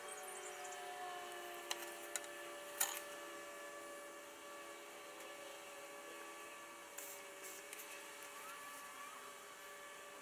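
Faint sustained tones slowly shifting in pitch, with a few light clicks and taps as the wires and tools are handled, the sharpest about three seconds in.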